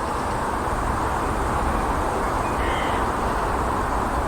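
Steady outdoor background rumble, with a single faint crow caw about midway through.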